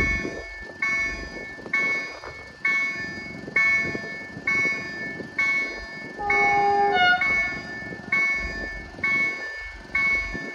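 Level-crossing warning bell ringing, one decaying metallic ding about every second, with a low rumble beneath. About six seconds in, a short two-note pitched tone sounds over it.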